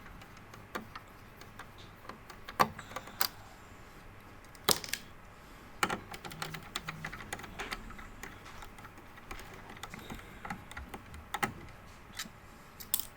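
Irregular small clicks and taps of a Phillips screwdriver working the screws out of the plastic port cover on the back of an all-in-one PC, spread unevenly through the stretch, with a few sharper clicks.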